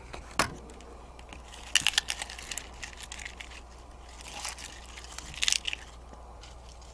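A crisp lettuce leaf crinkling and crunching as it is scooped through chili sambal in a stone mortar, in a few short bursts about two seconds in and again after four seconds.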